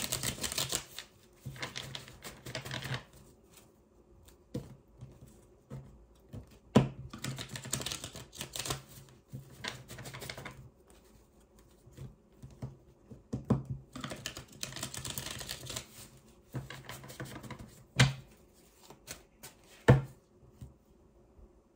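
A deck of tarot cards being shuffled by hand: three spells of dense crackling, each a few seconds long, with a few sharp knocks between them.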